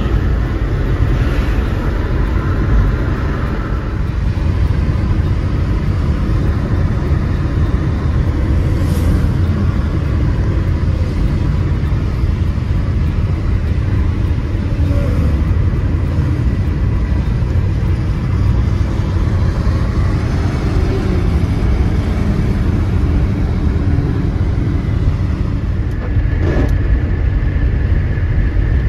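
Steady road noise heard from inside a moving car's cabin on a highway: a continuous low rumble of engine and tyres.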